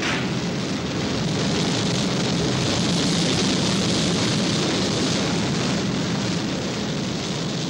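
Rocket launch sound effect: the solar rocket's engines firing at lift-off, a loud, steady rushing noise.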